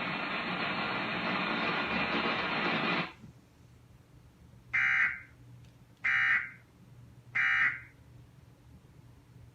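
A loud, dense noisy sound cuts off sharply about three seconds in. Then come three short, buzzy digital bursts a little over a second apart: the Emergency Alert System end-of-message (EOM) data tones closing the Amber Alert broadcast.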